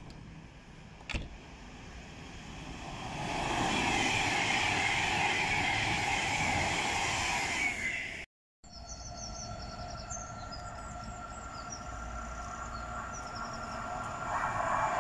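An electric train approaching along the main line, growing louder over a few seconds. After a sudden cut, a Class 350 electric multiple unit stands at the platform with a steady electrical hum. Near the end a passing train grows louder.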